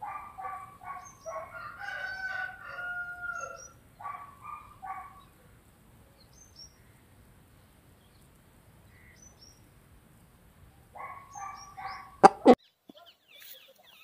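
Aseel rooster calling in bursts of rapid pulsing clucks, with a drawn-out crow about two seconds in; further bursts of clucks come about four seconds in and again near the end. Two sharp knocks just after that are the loudest sounds.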